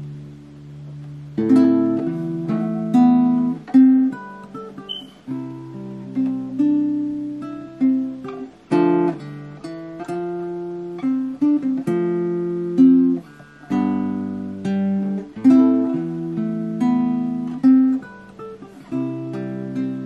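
Ibanez GA35TCE nylon-string classical guitar played fingerstyle: plucked chords and melody notes. A chord rings out at the start, and the playing picks up again about a second and a half in.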